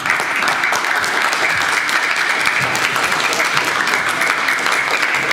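Spectators applauding after a point is won in a table tennis match, with sustained, steady clapping that breaks out suddenly as the rally ends.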